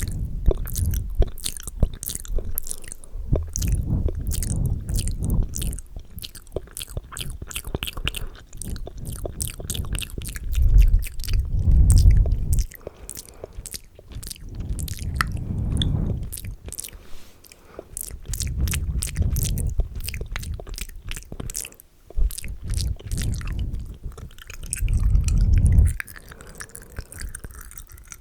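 ASMR mouth sounds right up against a microphone: fast, wet clicks and smacks, several a second, with low muffled swells every few seconds.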